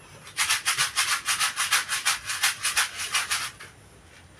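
Quick, even scraping or rubbing strokes, about six a second, lasting some three seconds.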